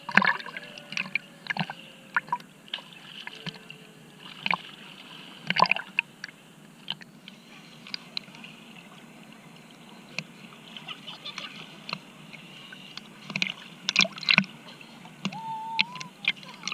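Sea water splashing and sloshing around a swimmer, in short irregular splashes over a steady wash of water.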